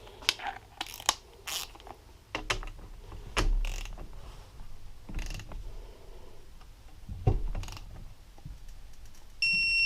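Metal engine parts and hand tools clicking and clinking as shift-mechanism parts are fitted, in irregular taps, with a louder knock about seven seconds in. A short, high electronic beep sounds near the end.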